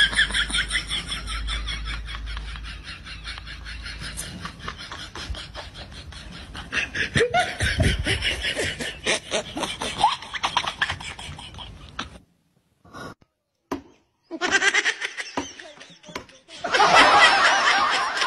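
People laughing in quick, repeated bursts, breaking off for about two seconds past the middle, then laughing louder again near the end.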